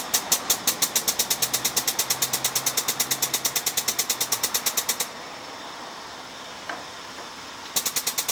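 Grease gun pumping grease into the hedge trimmer's blade-gearbox grease fitting: a fast, even run of sharp mechanical clicks, about eight a second, that stops about five seconds in and starts again near the end.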